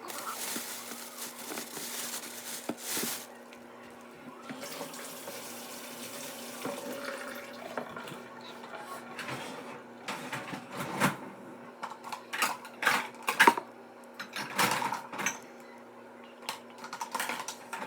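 Water running for about eight seconds, loudest in the first three, then a series of sharp clatters and knocks.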